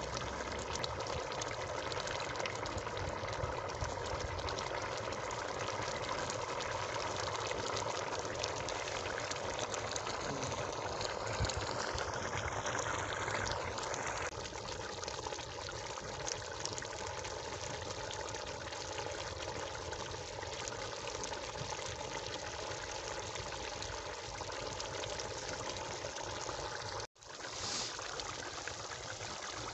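Chicken karahi gravy simmering and bubbling steadily in a large aluminium pot over a wood fire. The sound drops a little about halfway through and breaks off briefly near the end.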